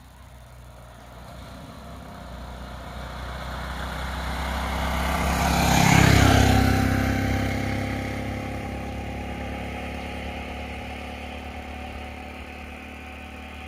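Three-wheeler auto-rickshaw driving past close by, its small engine growing louder to a peak about six seconds in, then fading as it moves away.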